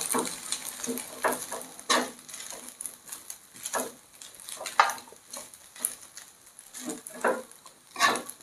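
Kitchen tongs tossing and stirring spaghetti in a frying pan: irregular clacks and scrapes of the tongs against the pan, a second or so apart, over a faint sizzle of the frying pasta.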